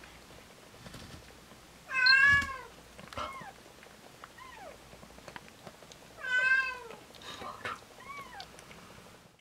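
A cat meowing: two loud meows about four seconds apart, each rising then falling in pitch, with fainter short falling mews between and after them.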